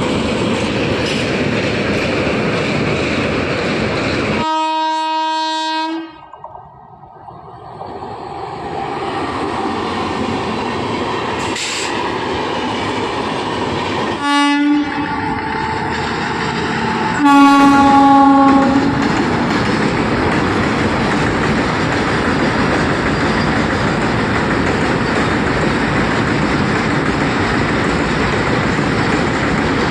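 Indian Railways express train running past close by, with a steady loud rush of wheel and rail noise. A train horn sounds three times: a held blast about four seconds in that cuts off abruptly, a short toot about fourteen seconds in, and a longer blast a few seconds after that.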